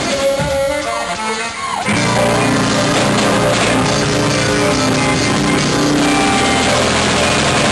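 Live dance band playing, with electric keyboard, drum kit and guitar. The bass and drums drop out for a short break, and the full band comes back in about two seconds in.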